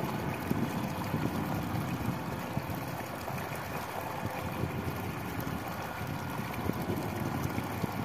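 Water gushing out of a large pipe outlet into a full irrigation channel, a steady low rushing and splashing with no break.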